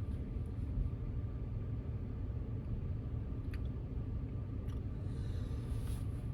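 Low, steady rumble of a car running, with a few faint clicks.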